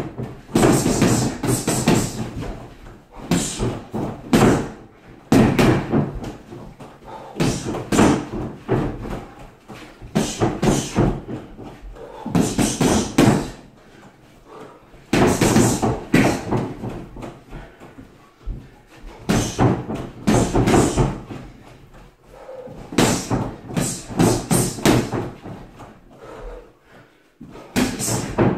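Boxing gloves punching a freestanding punchbag with a water-filled base: quick combinations of thuds, about ten flurries separated by short pauses.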